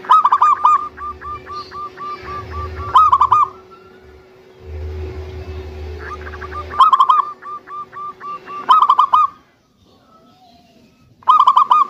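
Local zebra dove (perkutut) cooing in rapid runs of short, evenly spaced staccato notes. Loud clusters of coos come every two to three seconds, linked by softer trailing runs, with a brief silence near the end before the last loud burst.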